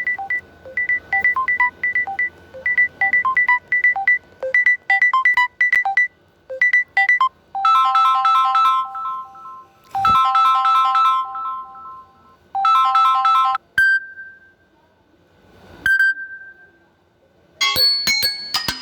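Samsung Galaxy ringtones and notification tones playing one after another: a fast repeating pattern of short electronic beeps, then three short chiming chords, then two single soft tones that fade out. A new plucked-sounding tone begins near the end.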